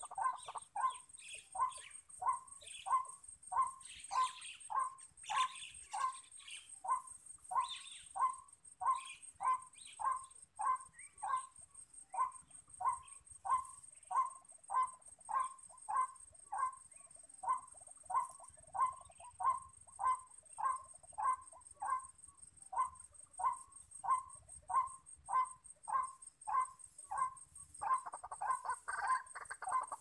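White-breasted waterhen calling: a long run of short, even croaking notes, about two a second. The notes crowd together and overlap near the end.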